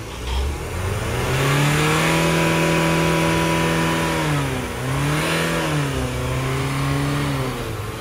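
Ford EcoSport diesel engine revved and held at raised revs, dipping briefly about halfway through and picking up again, then settling a little lower near the end. The water-damaged car is running again after repair.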